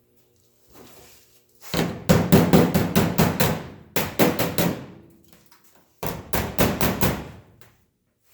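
Hand hammer striking sheet steel in two runs of rapid blows, about five a second, while a rear quarter patch panel is shaped by hand.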